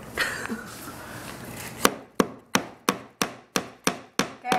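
The butt of a knife handle used as a hammer, knocking on wooden door-frame trim in an even run of sharp knocks, about three a second, starting about two seconds in after some rustling.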